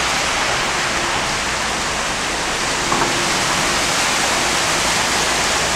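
Heavy rain pouring down in a steady, dense hiss during a sudden downpour that is flooding the street.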